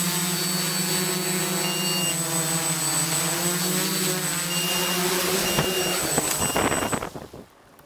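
Quadcopter's electric motors and propellers whining steadily, with a thin high tone on top. The pitch wavers as it comes down to the ground, and the motors cut off about seven seconds in.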